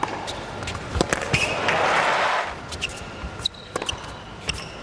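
Tennis rally on an indoor hard court: sharp racket strikes and ball bounces, with short sneaker squeaks. About two seconds in, a loud one-second burst of crowd noise breaks in and cuts off abruptly.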